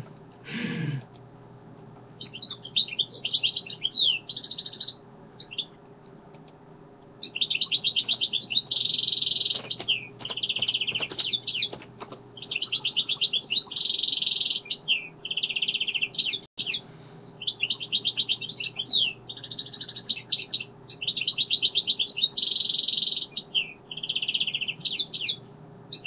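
A small songbird chirping and twittering in rapid trilled phrases a second or more long, broken by short pauses, over a faint steady hum.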